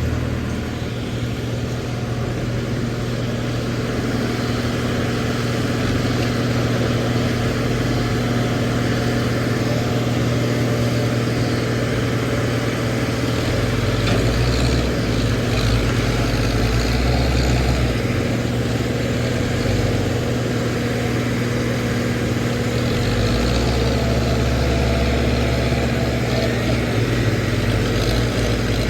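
Backhoe loader's diesel engine running steadily, with a deeper rumble that swells and eases twice.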